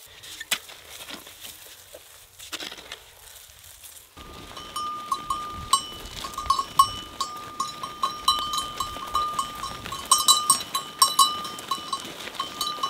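Hoe blade chopping and scraping in soil, a few sharp knocks, for the first four seconds; then the many bells of a moving flock of sheep clinking and ringing together in a dense, uneven jangle.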